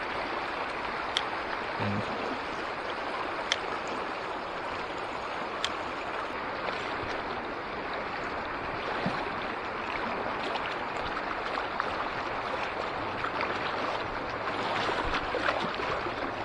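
River water rushing steadily, with a few short sharp clicks about a second, three and a half and five and a half seconds in.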